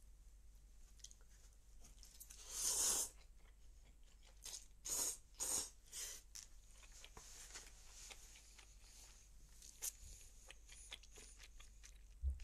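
Noodles slurped and chewed from a bowl: one long slurp about two seconds in, a few shorter slurps around five to six seconds, then soft chewing.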